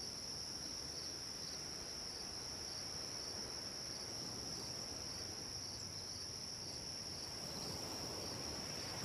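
Soft, steady ocean-wave ambience, an even wash of surf noise, with a continuous high-pitched cricket chirring over it.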